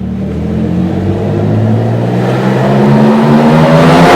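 Nissan 350Z's 3.5-litre V6 accelerating, its pitch climbing steadily as it gets louder.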